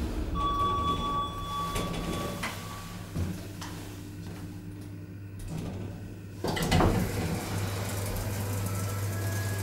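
1999 Schindler traction elevator car running with a steady low hum and a thin steady tone for the first couple of seconds. About six and a half seconds in, the car's automatic sliding doors open with a louder rush of noise, and a steady hum carries on after.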